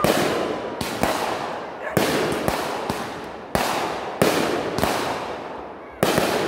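Aerial fireworks going off in quick succession: about eight sharp bangs at uneven intervals of half a second to a second, each dying away before the next.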